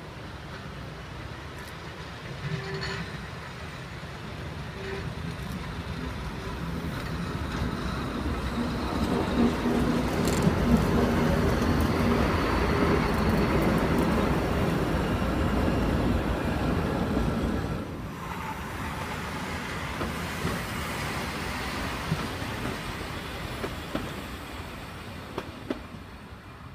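Metre-gauge MOB BCFe 4/4 No. 11 electric railcar and its trailer coach passing close by: the running gear and the wheels on the rails grow louder as the train approaches and are loudest in the middle. The sound drops abruptly about two-thirds of the way through, then fades as the train moves away.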